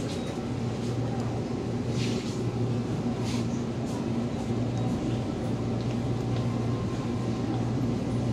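Steady low hum of a supermarket's open refrigerated display cases, with a few short rustles.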